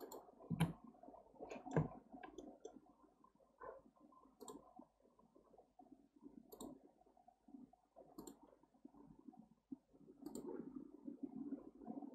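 Computer mouse clicking at irregular intervals, with two heavier clicks in the first two seconds, over a faint low background murmur.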